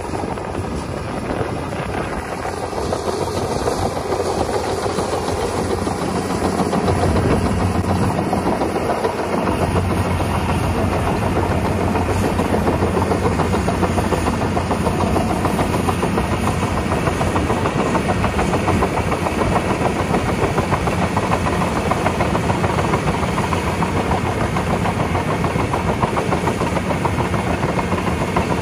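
Caterpillar D7E diesel-electric bulldozer's diesel engine running steadily under load as the blade pushes topsoil, growing louder over the first several seconds and then holding steady.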